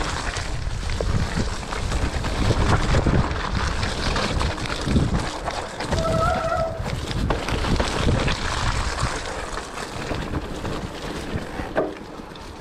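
Mountain bike riding down a muddy, rooty trail: wind rumbling on the microphone while the tyres and bike rattle and knock over the ground, with a short high squeal about six seconds in.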